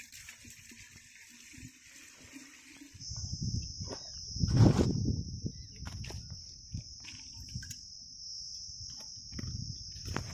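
Steady high-pitched drone of insects over irregular thuds and scrapes of dry earth clods being broken and moved by hand, with one louder thud about four and a half seconds in. A steady hiss fills the first three seconds.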